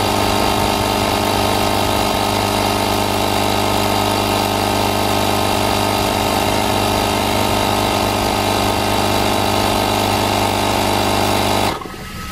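ASAKA 12V portable tire inflator's electric compressor running steadily while pumping up a car tire, then cutting off abruptly near the end as it reaches its preset 35 psi and the auto shut-off trips.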